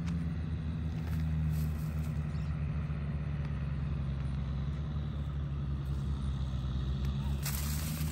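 Steady low hum of an engine running, with a short scratchy rustle near the end.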